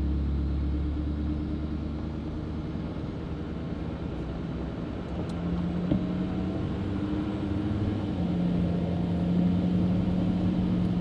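Duramax V8 turbodiesel running while driving, breathing through a 4-inch straight pipe into a 7-inch bed stack: a steady low drone, with the billet-wheel turbo whistling faintly over it.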